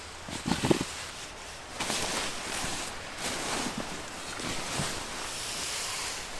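Nylon fabric of a camping hammock and sleeping bag rustling and swishing continuously as the bag is laid and stuffed into the hammock, with a couple of short thumps about half a second in.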